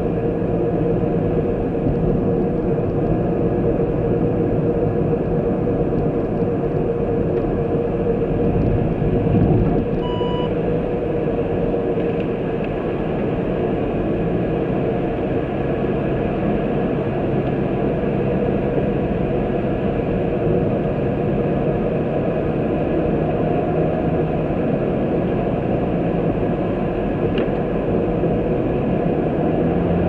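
Car driving along a road: steady engine and tyre noise with a low hum. A short beep sounds about ten seconds in.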